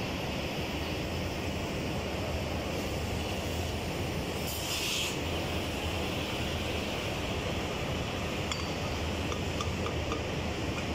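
Oxy-fuel cutting torch running with a steady hissing flame as it cuts the old fire tubes out of the boiler's tube sheet, with a brief sharper hiss about halfway through and a few faint metallic ticks near the end.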